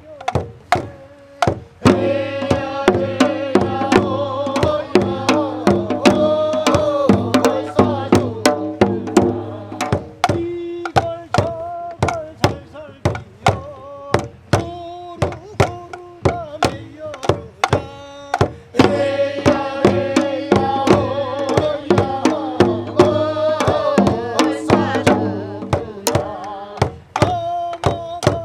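Korean folk music: percussion strokes at a steady pace of about two a second, with a pitched melody coming in over them twice, about two seconds in and again near two-thirds of the way through.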